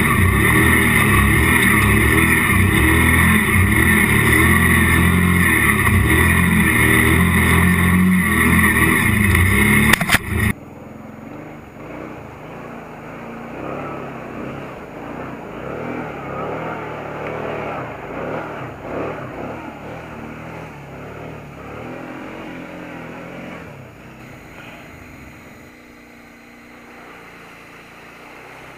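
Kawasaki Brute Force ATV engine running steadily under load while the machine ploughs through water, with splashing. About ten seconds in the sound cuts abruptly to a much quieter passage of engine and water noise that fades slowly.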